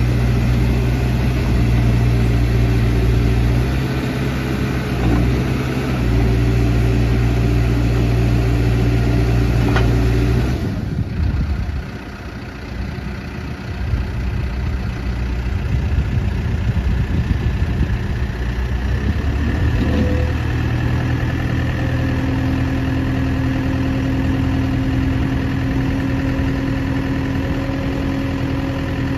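Case 580 Super M backhoe's 95 HP Case diesel engine running steadily. The sound breaks off abruptly about ten seconds in and is quieter and uneven for several seconds. About two-thirds of the way in it settles into a steady hum with a higher tone.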